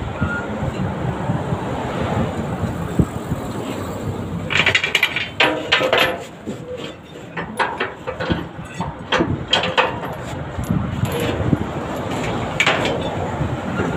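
A metal chain clinking and rattling against metal in bursts, mostly in the middle of the stretch and once more near the end, over a steady low rumble.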